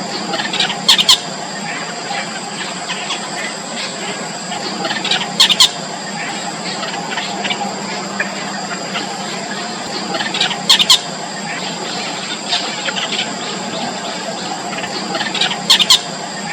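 Four-day-old nestlings squealing with thin, high begging calls, many short squeaks over a steady background hum. Louder sharp double bursts come about every five seconds.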